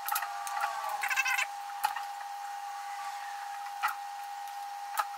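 Handling noises from taking apart a drone: a few sharp clicks and knocks of parts and tools, with a brief squeak about a second in, over a steady high-pitched hum.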